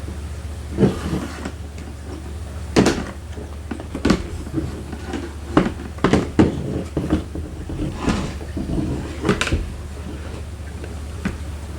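Irregular clunks, clicks and scrapes of hands and tools working parts of a Lexus SC430 door's latch mechanism, with a steady low hum underneath.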